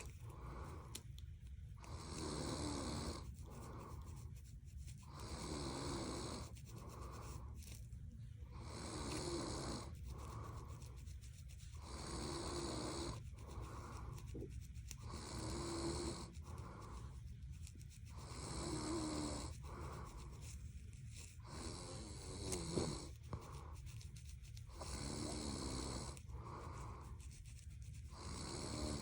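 A person snoring steadily, about one snore every three seconds.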